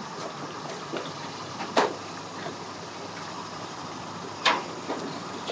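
Two sharp knocks, about two and four and a half seconds in, over a steady background noise.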